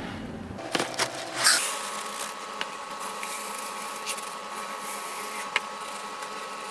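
Plastic bag of poly pellets crinkling in the first second and a half, then faint scattered ticks of the pellets being poured through a funnel into a sock.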